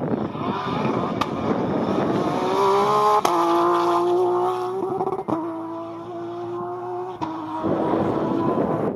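Rally car engines running hard at speed on a tarmac stage, with a strong, steady engine note. The note breaks off and changes abruptly a few times.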